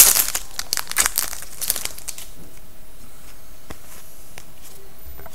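Plastic wrapper of a hockey card pack crinkling as it is handled and torn open. The rustling runs for about the first two seconds, loudest right at the start, and is followed by a few faint clicks.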